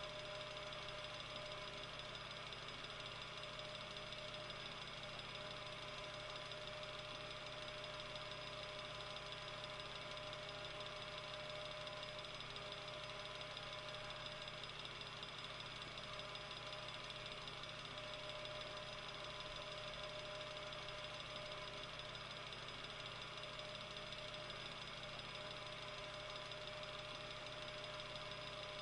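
Metal table fan running steadily: an even whoosh of air with a constant motor hum and a few fixed whining tones.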